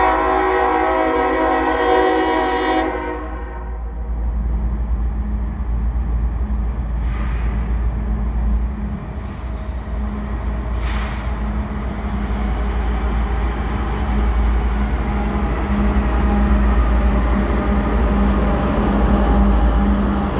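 Diesel freight locomotive: its air horn sounds one long chord of several tones for about three and a half seconds at the start, then the engine's low rumble grows louder as the train slowly approaches and the locomotive passes near the end.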